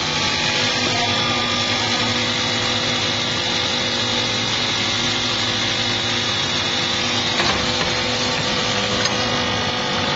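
Coil nail making machinery running: a loud, steady, dense machine noise with several steady tones, and a couple of light knocks in the last few seconds.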